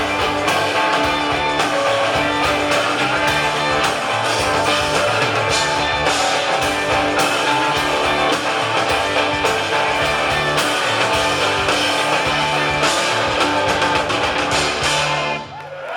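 Live rock band playing a loud instrumental passage with guitars, bass and drums, no vocals. The music cuts off abruptly about half a second before the end.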